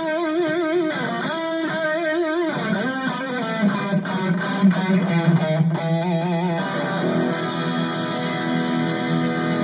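Ibanez AZES40 electric guitar played through a Cuvave Cube Baby multi-effects unit: held notes with a wavering pitch, then a quick run of picked notes about four seconds in, settling into steady ringing notes.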